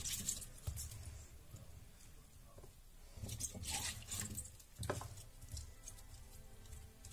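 Sliced raw artichoke pieces being handled and laid by hand into a glass baking dish: soft, scattered rustling and patting, busiest about three to five seconds in, with a sharper tap just before five seconds.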